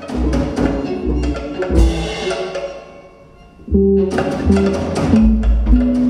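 Band music with a steady beat of sharp, clicking percussion over a bass line. It drops away about three seconds in and comes back fuller just under a second later.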